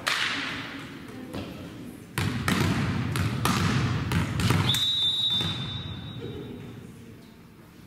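A volleyball bouncing on a gym floor, with a few more thumps over the hall's din. About five seconds in, a referee's whistle sounds once, held for over a second, the signal for the next serve.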